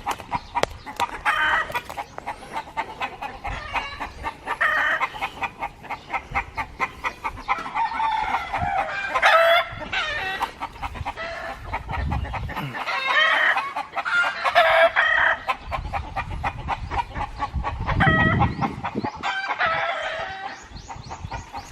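A flock of chickens clucking and squawking excitedly, many calls overlapping, with a rooster crowing among them; they are worked up in expectation of being given water and feed.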